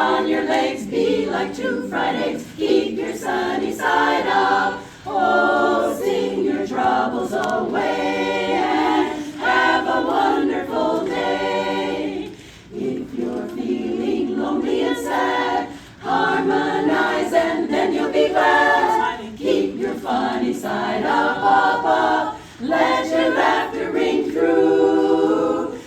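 A cappella choir singing in phrases, with no instruments.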